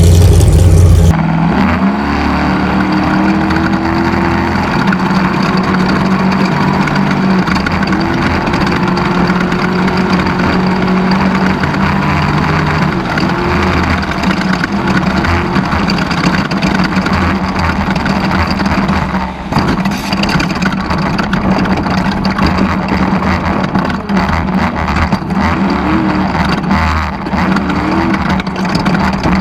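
Off-road race vehicle's engine running hard, its revs rising and falling continuously as it is driven at racing speed. It opens with about a second of very loud, low sound before the engine takes over.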